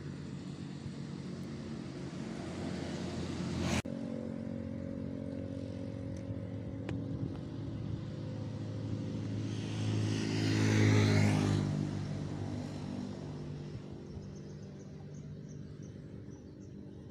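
Engine of a motor vehicle passing on a nearby road: a steady drone that swells to its loudest about ten to twelve seconds in, then fades away. There is a sharp click about four seconds in.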